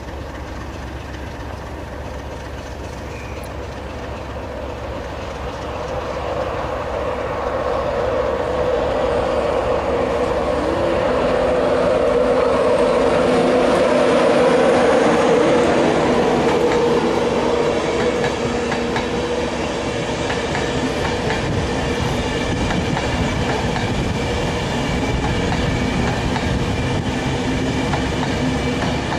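A Class 91 electric locomotive hauling Mark IV coaches passes close by. The sound grows louder over the first dozen seconds, then holds steady as the coaches roll past, with a steady tone running through it.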